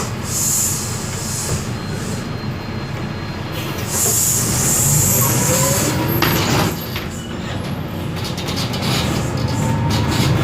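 Isobus City 1200 city bus under way, heard from inside: the MAN D0836 LOH inline-six diesel runs with a low steady hum while a drivetrain whine from the ZF automatic gearbox and differential rises in pitch as the bus pulls away, about halfway through and again near the end.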